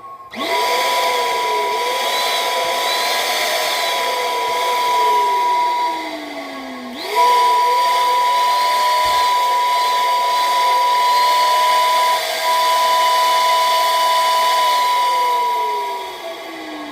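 Steam whistle blowing in two long blasts: a steady high note over a hiss of rushing air, with a lower wavering note that slides down in pitch as each blast dies away.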